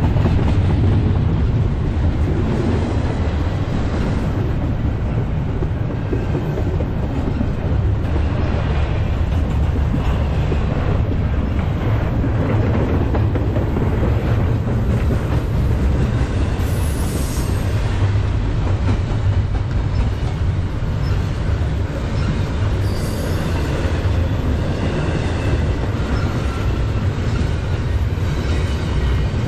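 Double-stack intermodal container train rolling past close by: steady rumble and clatter of the well cars' wheels on the rails, with a few brief high-pitched wheel squeals.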